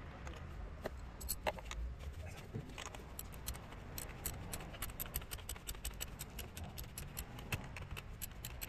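Quick, slightly uneven metallic clicking, several times a second and thicker from about three seconds in: a ratchet wrench and socket working a bolt on a metal bracket.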